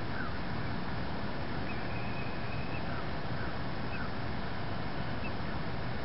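Steady outdoor background noise with a few faint, short bird chirps scattered through it and one thin, high held whistle around two seconds in.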